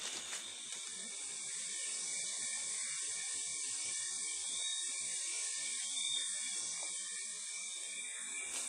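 Chorus of rainforest insects: a steady high hiss with several held high-pitched tones over it.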